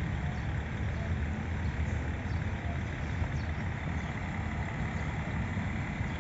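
Steady outdoor background noise in a park, dominated by an unbroken low rumble.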